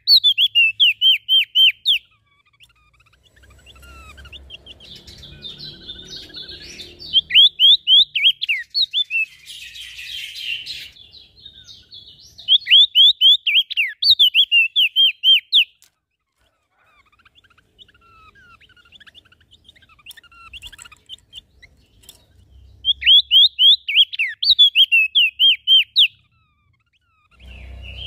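Small songbirds singing: four bouts, each two to three seconds long, of loud, rapid, sharply falling notes, with softer twittering and chattering between them.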